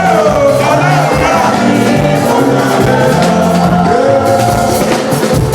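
Church choir singing gospel music, with wavering, gliding voices over drums and other instruments.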